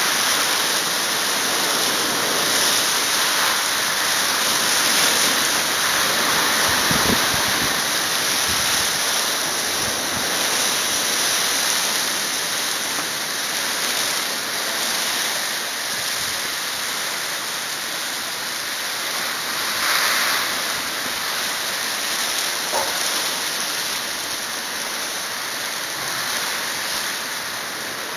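Heavy sleet, halfway between rain and snow, falling in a steady hiss as it patters on surfaces, easing a little toward the end.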